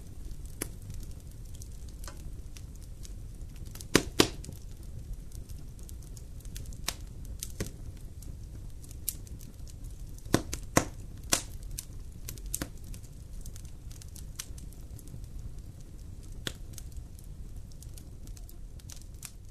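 Wood fire burning in a glass-fronted firebox: logs crackling and popping at irregular intervals over a low, steady rumble of the flames. The loudest pops come as a quick pair about four seconds in.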